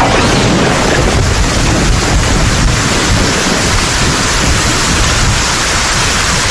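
Heavy rain pouring down steadily, a dense hiss with a low rumble underneath.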